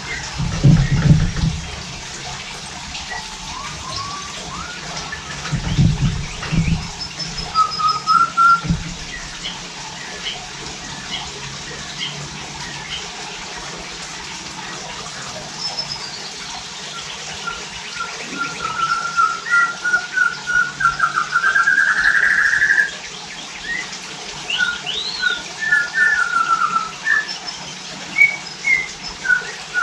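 White-rumped shamas singing: varied whistled notes, trills and fast runs of repeated notes over a steady hiss. A few low thumps come about a second in and again around six to nine seconds in.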